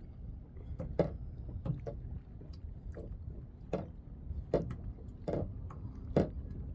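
Small waves slapping and knocking against the hull of an anchored kayak: short, sharp knocks at uneven intervals, about one to two a second, over a steady low rumble.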